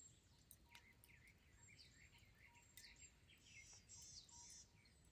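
Faint birdsong: scattered short chirps and a few quick high trills from small wild birds.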